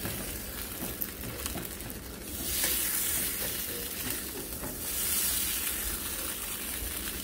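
Metal spoon stirring and scraping through a thickening milk-and-sour-cream gravy with ground beef in a cast iron skillet, over a sizzling hiss from the hot pan. The hiss swells louder twice, about two and a half seconds in and again around five seconds in.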